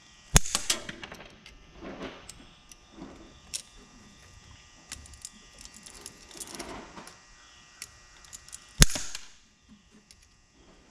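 Hand cutters snipping twice, sharp clicks shortly after the start and again near the end, amid small metal clinks and rustling as parts are handled.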